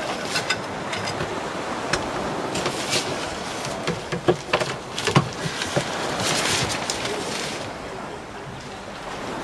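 Nylon wind scoop being handled and pulled down through a boat's deck hatch: fabric rustling with a series of sharp clicks and knocks from its frame and poles, over steady wind and wave noise. A louder rustle swells about six seconds in.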